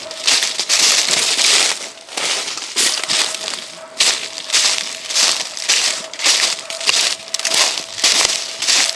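Footsteps crunching through dry leaf litter at a brisk walk, about two steps a second.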